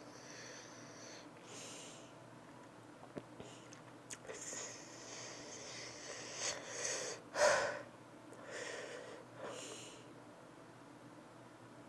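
A woman sniffing and breathing hard through her nose and mouth in a series of separate breaths, the loudest about seven and a half seconds in. It is her reaction to the burn of an extremely hot chili-coated peanut.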